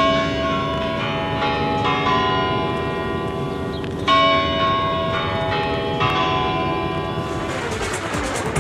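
Large bells ringing: about five strikes a second or two apart, each leaving a long, many-toned hum. The ringing fades near the end.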